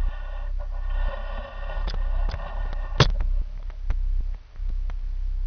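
Handling noise from a pole-mounted camera being moved: scattered clicks and knocks, the loudest about three seconds in, over a steady low hum and hiss that thins out after that knock.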